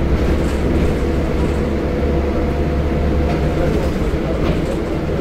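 Scania L94UB bus running steadily, heard from inside the passenger cabin: a low, even engine and drivetrain hum with a few light rattles from the body.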